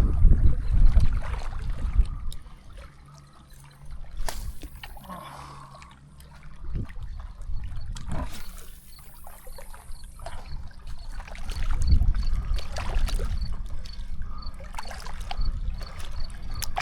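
Water trickling and splashing close by, with scattered small clicks and knocks. A low rumble of wind buffets the microphone, heavy in the first couple of seconds, easing off for a few seconds, then coming back.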